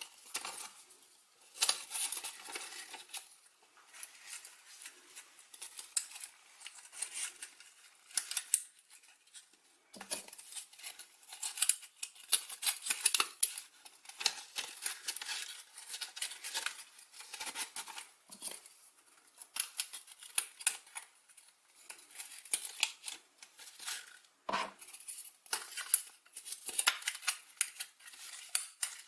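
Foam-board model pieces and a paper strip being handled and fitted together by hand: irregular scraping, rustling and small clicks, with two sharper knocks, one about ten seconds in and one near the end.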